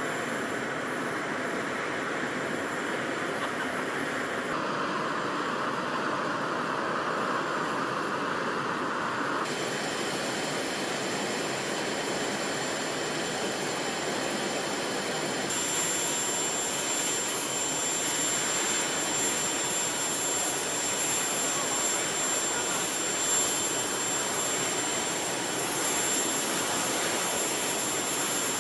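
Airbus A400M Atlas's four turboprop engines running on the ground: a steady rushing engine noise with a thin high whine, clearest in the second half. The sound shifts abruptly a few times.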